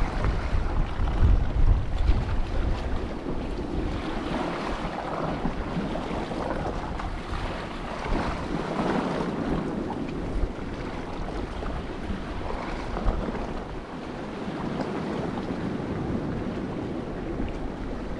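Wind buffeting the microphone, heaviest in the first couple of seconds, over a steady wash of sea surf.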